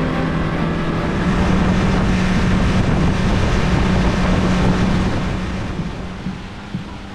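Boat motor running steady under way, a low even hum with wind rushing over the microphone; it eases off over the last second or two.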